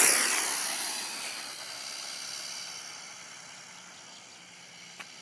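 Battery-powered Redcat Caldera XB 10E RC car passing close at speed, its motor and drivetrain whine loudest as it goes by, then dropping in pitch and fading as it runs away down the road. A single short click near the end.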